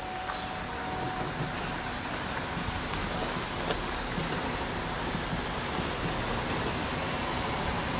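Boston MBTA Flyer electric trolleybus rolling slowly past close by: a steady hiss of tyres on the gravel road that grows a little louder as it nears, with a faint click about halfway through.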